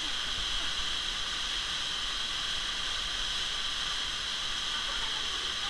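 Waterfall's falling water making a steady, even hiss.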